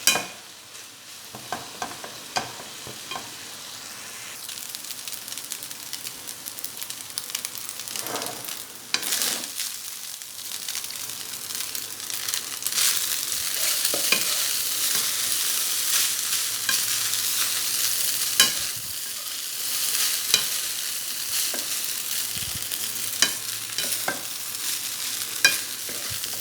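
Fried rice sizzling in a pan as it is stirred and scraped with a spatula, with sharp clicks of the spatula against the pan. The sizzle grows louder about halfway through.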